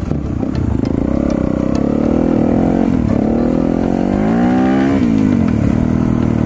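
Yamaha WR250 dirt bike's single-cylinder four-stroke engine running while riding a dirt track, its pitch wavering with the throttle. It climbs for over a second from about three and a half seconds in, then drops off quickly at about five seconds.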